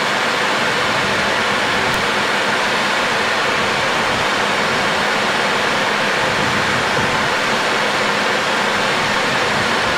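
Steady rushing flight-deck noise of a Boeing 737 on final approach: airflow over the cockpit mixed with the engines, at an even level.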